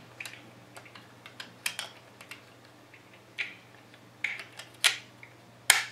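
Left grip panel of a Walther P38 CO2 pistol being fitted back onto the frame and pressed home: a scatter of small clicks and taps, the two loudest near the end.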